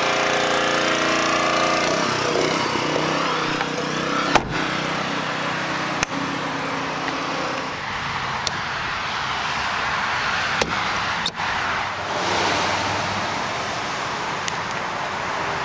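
Pressure washer running steadily in the background, with a single thump about four seconds in and a few sharp clicks later on.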